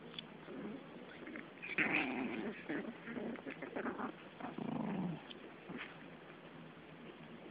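Seven-week-old puppies play-fighting, giving short growls, loudest between about two and five seconds in.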